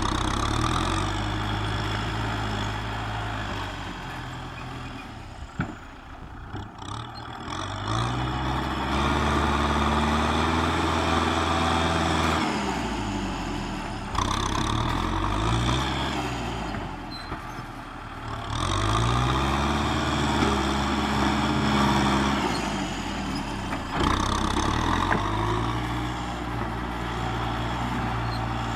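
Kubota M6040SU tractor's diesel engine working under load while pushing earth. It revs up and eases off again several times, with clear rises in pitch about 8, 19 and 24 seconds in.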